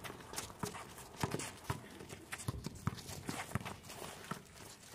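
Basketball dribbled on an asphalt court: a run of sharp bouncing thuds, about two to three a second.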